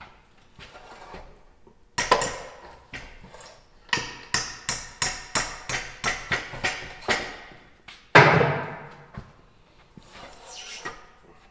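Wooden knocks from handling chunks of old fence post at a miter saw table: a single knock, then a run of about ten quick, evenly spaced knocks, then one heavier, louder clunk near the end.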